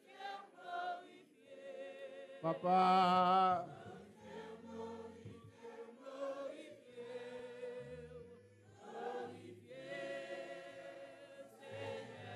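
Church congregation singing a worship song together, with a louder phrase about two and a half seconds in.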